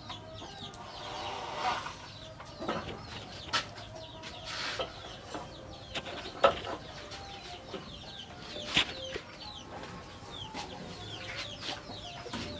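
Chickens clucking in the background, with small birds chirping in short falling chirps and a sharp click about six and a half seconds in.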